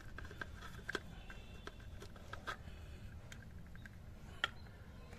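Plastic snap-fit clips of a cordless phone handset's case clicking as the front and back halves are pried apart: a scatter of small clicks, with one sharp snap near the end.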